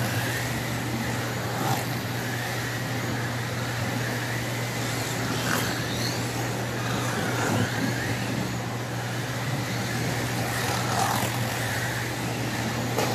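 Ninco and Scalextric Mini Cooper slot cars racing round the track: small electric motors whining up and down in pitch as the cars pass, with the rattle of the cars running in the slots, over a steady low hum.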